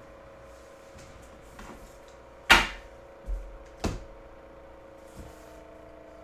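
Two sharp knocks about a second and a half apart, with a dull thud between them, like objects being handled on a table. A faint steady hum lies under them.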